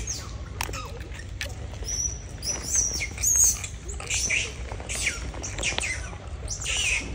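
Animal chirping: many short, high-pitched chirps and squeaks in quick succession, several sliding downward in pitch, over a steady low rumble.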